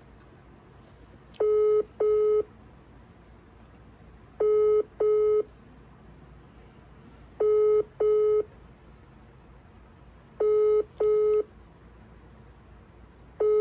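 Telephone ringback tone as an outgoing call rings at the other end, not yet answered: a double ring of two short beeps, repeating every three seconds, five times.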